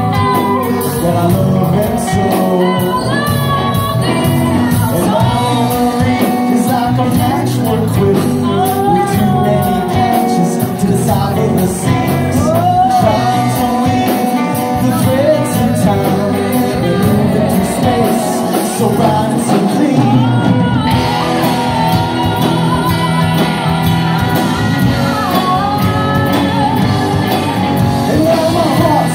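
Live rock band playing: electric guitars, bass, drums and saxophone, with a vocal sung over it. About two-thirds of the way through, the high end grows brighter and hissier.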